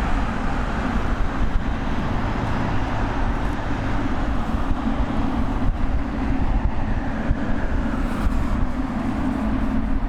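Jet aircraft engines running at an airport: a steady rumble with a constant low hum and no distinct changes.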